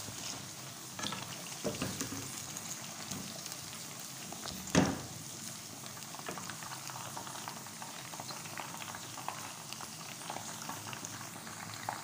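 Chicken pieces deep-frying in hot oil in a wok, a steady sizzling and bubbling. A slotted spatula turns them and knocks against the pan a few times; the loudest knock comes about five seconds in.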